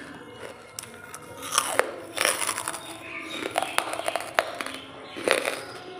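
Close-miked biting and chewing of dry charcoal lumps. Sharp crunches begin about a second and a half in and repeat several times, with quieter chewing between them.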